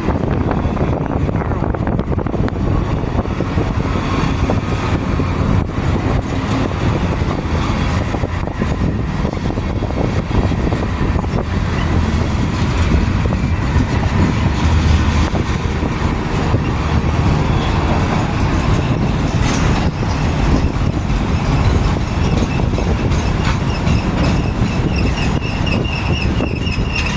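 CSX freight train's cars rolling past on the rails as the train slows, a loud steady rumble. A high, wavering squeal comes in near the end.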